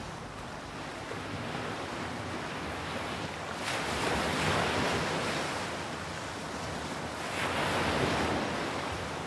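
Sea waves washing, with wind noise on the microphone; the water swells louder twice, about four seconds in and again about eight seconds in.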